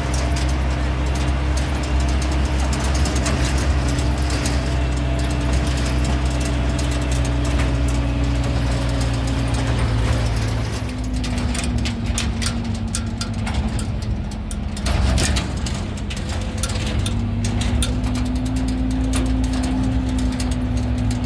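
Motor vehicle engine running steadily. Its pitch drops a little about halfway through and rises again near the end, with light rattling clicks in the second half.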